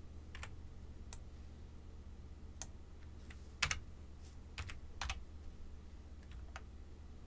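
Computer keyboard keystrokes: about eight separate sharp key taps, spaced unevenly, the loudest a little past the middle, over a faint steady low hum.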